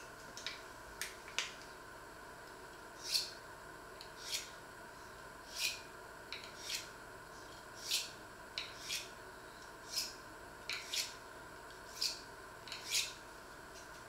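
A series of short, hissing scrapes, roughly one a second and somewhat uneven, over a faint steady hum.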